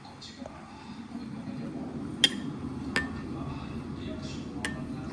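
Ceramic soup spoon clinking against a porcelain soup bowl: three sharp, briefly ringing clinks, over a steady murmur of voices.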